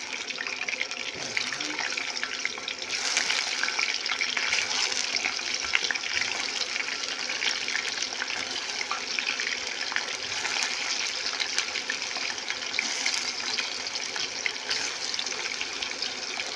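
Tofu deep-frying in hot oil in a wok: a steady crackling sizzle of many fine pops, a little louder from about three seconds in.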